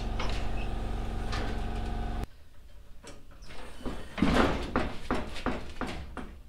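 A steady mechanical hum that cuts off suddenly about two seconds in. Then, after a short lull, a quick irregular run of clicks and knocks as someone works by hand at a car's rear wheel well.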